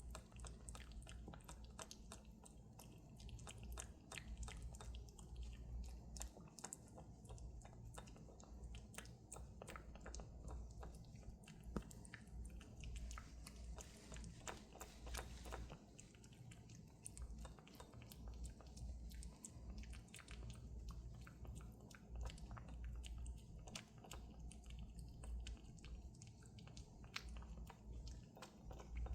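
A cat eating Churu puree treat: rapid, irregular wet smacking and lapping clicks from its tongue and mouth, over a low rumble.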